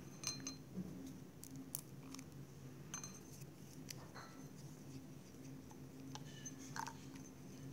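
Scattered faint clicks and taps of a wooden craft stick stirring in a glass bowl of runny slime mixture, over a low steady hum.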